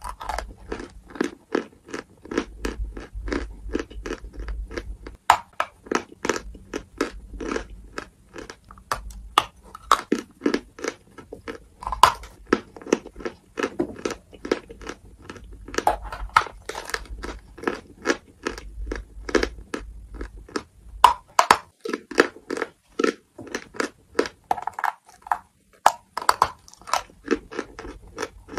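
Lumps of white chalk being bitten and chewed: a quick, continuous run of crunches, several a second.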